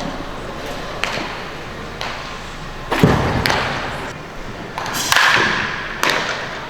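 A series of sharp knocks and thuds from baseball practice, about one a second at first, the loudest and deepest about three seconds in. Each one rings on in the echo of a large indoor practice hall.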